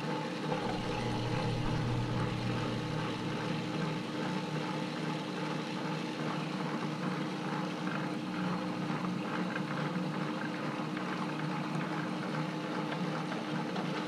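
Atlas QC54 metal lathe running steadily, motor and gear train humming with a constant whine, its carriage power-fed along the leadscrew through newly 3D-printed PLA half nuts engaged on the thread.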